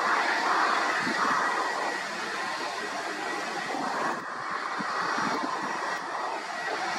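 Jet engines of an easyJet Airbus A320-family airliner on final approach with gear down, heard from afar: a steady rushing hiss with a thin whine running through it, swelling slightly near the start.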